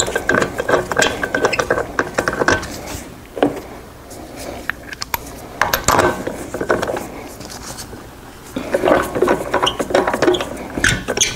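Ratchet wrench running lug nuts onto a wheel: two stretches of rapid ratcheting clicks, one at the start lasting a couple of seconds and another near the end, with a few scattered metal clanks between.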